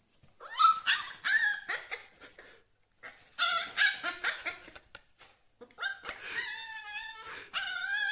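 Husky puppy whining and yipping in several short bouts, ending in a longer, steadier whine near the end.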